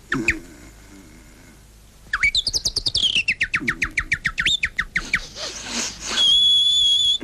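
Bird-like high chirps: a single chirp at first, then a fast trill of rising and falling notes about two seconds in, and near the end a long, steady, high whistled note that carries on.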